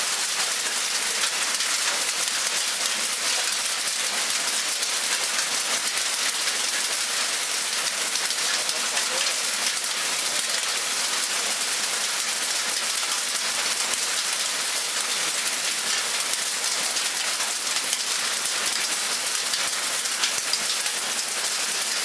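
Heavy rain mixed with hail pelting puddled, flooded ground: a dense, steady hiss of countless small impacts.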